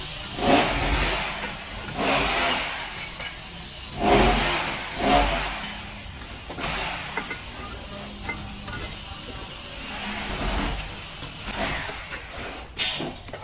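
Bricklaying work: a steel trowel scraping wet mortar and hollow clay bricks being pushed and set into the mortar bed. The strokes come irregularly, about every one to two seconds.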